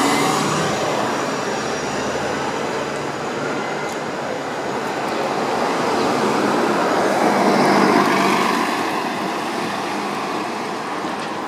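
City bus traffic: an Orion VII NG bus pulls away as a New Flyer XD40 Xcelsior diesel bus drives past close by. The passing bus is loudest about seven to eight seconds in, then fades as it moves off.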